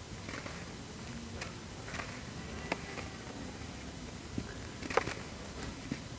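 Wet sand-and-cement heart shapes crumbling in foamy water: scattered soft crackles and small crunches at uneven intervals, the loudest about five seconds in.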